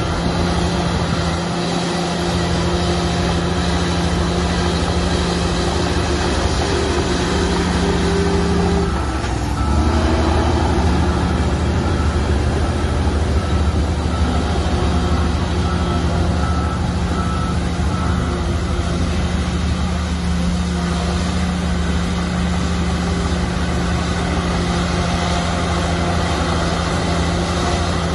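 Shantui crawler bulldozer's diesel engine running steadily under load. About nine seconds in, the engine note dips briefly, then the low rumble grows stronger.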